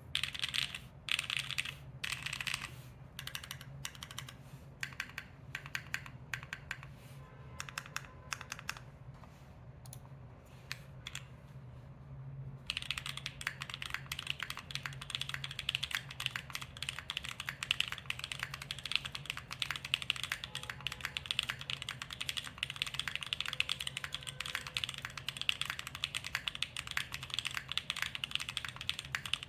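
Custom 60% mechanical keyboard with Gateron Quinn tactile switches, a carbon fiber plate, DCS-profile keycaps and no foam, being typed on. For about the first twelve seconds the keystrokes come separately and unevenly, then the typing turns fast and continuous.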